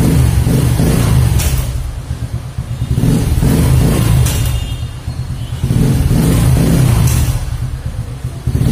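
Kawasaki Fury 125 motorcycle engine being revved in place, the engine note swelling and dropping back about three times.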